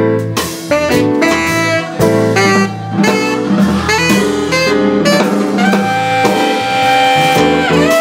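Tenor saxophone soloing over upright bass, piano and drums in a live jazz performance. In the second half the saxophone holds one long note that bends down at its end.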